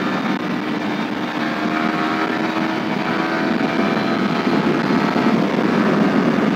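Yamaha R15 V3's single-cylinder engine accelerating at highway speed, its note rising slowly, with wind and road rush over it; it gets a little louder in the second half.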